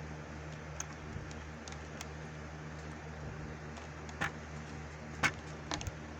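Small clicks and taps from wires and parts being handled: faint scattered ticks, then a few sharper clicks about four, five and nearly six seconds in. A steady low hum runs underneath.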